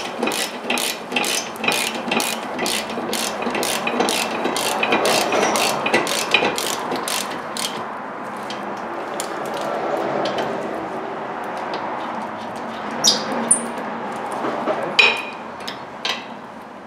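Ratchet wrench clicking in quick, even strokes, about three a second, as the brake caliper mounting bracket bolts are tightened. After about eight seconds the clicking thins out to a few scattered clicks.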